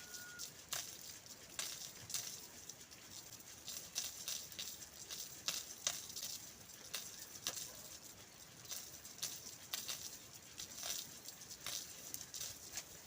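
Irregular light crackling clicks, a few a second, over a faint hiss.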